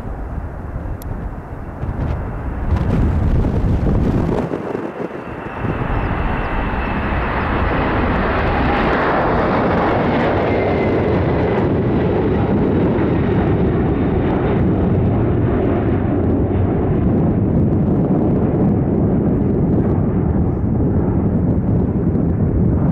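Boeing 747-400 jet engines passing overhead on approach. The noise builds to its peak about nine seconds in, with a whine that slowly drops in pitch as the aircraft passes, then settles into a steady low rumble as it moves away.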